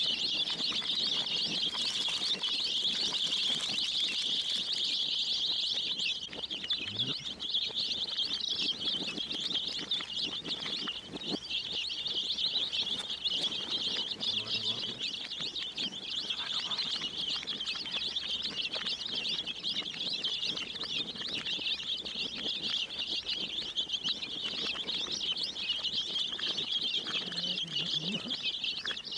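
A large flock of baby chicks peeping together in a dense, unbroken chorus.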